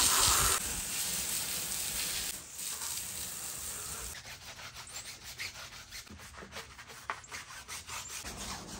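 Jet of water spraying hard onto a dirty tyre and aluminium wheel, a steady hiss. About four seconds in it gives way to a brush scrubbing the wet, soapy wheel in quick, repeated rubbing strokes.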